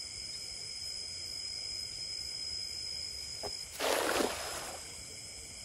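Steady high-pitched chorus of insects. About four seconds in comes a brief noisy rush of sound, about a second long, which is the loudest thing heard.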